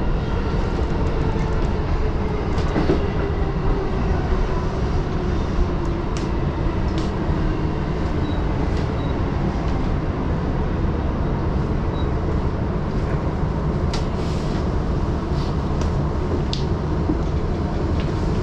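JR East E233-series Chuo Line Rapid electric train running, heard from inside the car: a steady rumble of wheels on rail with occasional clicks, and a faint motor whine that slowly falls in pitch over the first several seconds.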